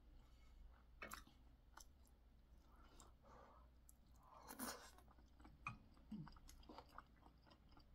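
Faint chewing and mouth smacking as a person eats chewy, spicy boneless chicken feet, with scattered small clicks. The loudest sound is a bite, about four and a half seconds in, as a piece goes into the mouth.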